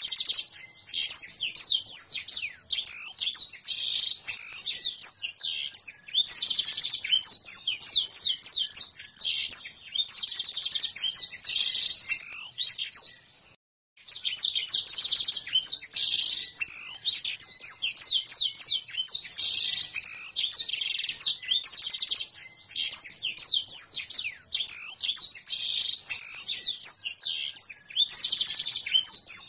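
Canary singing a long song of phrases that follow one another almost without a break. Fast buzzing and chopping trills, which canary fanciers call 'konslet' and 'ngentrok', alternate with quick whistled sweeps, and the song stops dead for a moment about halfway through.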